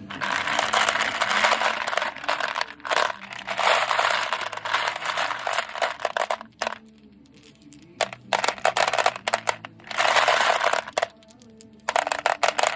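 Beads clicking and clattering against each other in several bursts of dense rattling, with short quieter pauses between.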